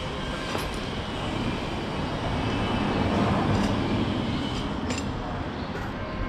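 Rumble of street traffic, growing louder toward the middle, then easing off, with a few faint clicks.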